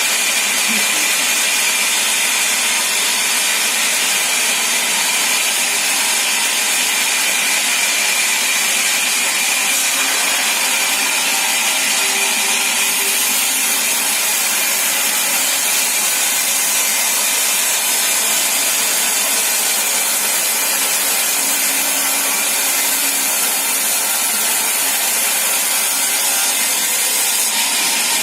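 Sawmill saw cutting through a log: a steady, loud hiss of blade on wood, with a faint high whine that fades about halfway through.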